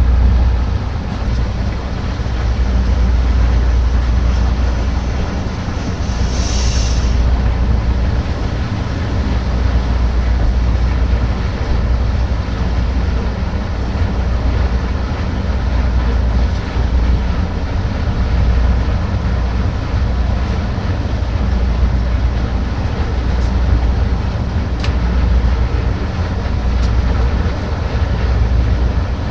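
Heavy machinery running with a deep, steady rumble that swells and eases, and a brief hiss about seven seconds in.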